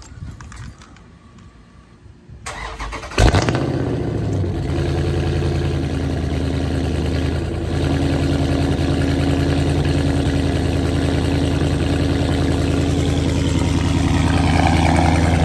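Dodge Charger Scat Pack's 392 (6.4 L) HEMI V8 with catless mid-pipes, heard at the exhaust tips, starting about three seconds in with a loud flare. It then settles within a second or two into a steady, loud idle.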